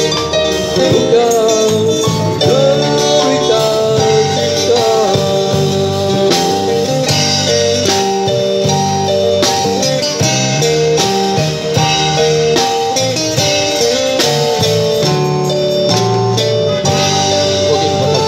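Live band music from a street combo: drum kit, electric keyboard and guitars playing together without a break.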